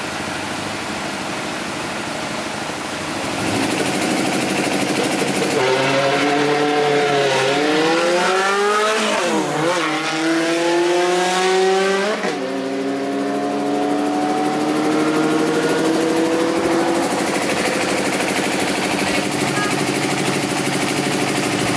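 Drag race car accelerating hard down the strip: the engine note climbs and drops back sharply at each gear change, three times, then keeps rising slowly and fades away.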